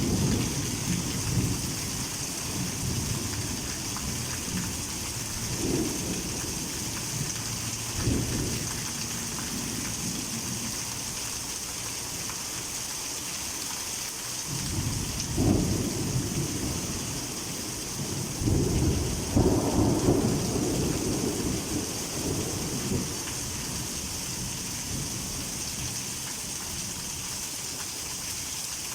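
Heavy rain falling with a steady hiss, and thunder rumbling low several times, the longest roll a little past the middle.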